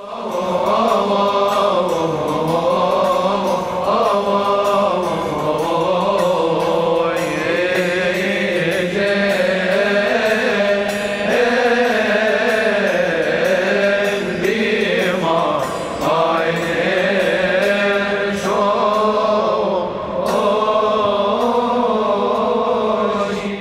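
Coptic Orthodox Easter liturgy chant: a choir sings a slow, winding melody over a held low note, with a light steady ticking of strikes above it. The singing dips briefly twice in the second half.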